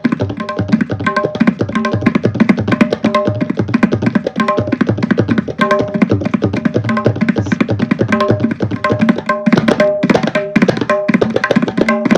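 Tabla playing a Teen Taal rela at fast tempo (drut laya): a dense, rapid stream of strokes on the pitched right-hand drum and the bass drum, the pattern meant to sound like a train running on its tracks. Near the end the strokes become more spaced and accented.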